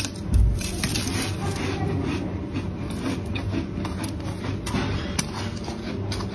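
Flaky freezer frost crunching and crackling as it is scraped and crushed: irregular crisp crunches over a steady low hum, with a low thump shortly after the start.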